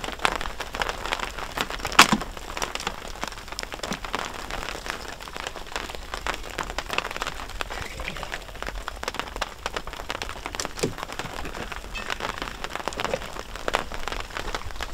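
Falling snow pattering steadily, with a sharp crack about two seconds in.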